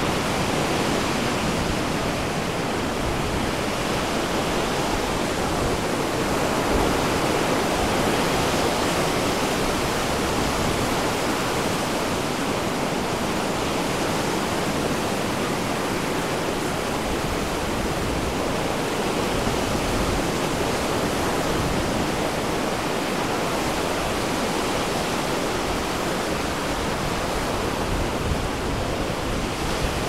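Ocean surf breaking on a beach: a steady wash of waves with no let-up.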